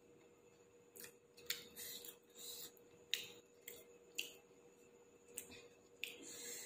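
Eating sounds at a meal: about ten short, sharp clicks and scrapes, a second or so apart, over a faint steady hum.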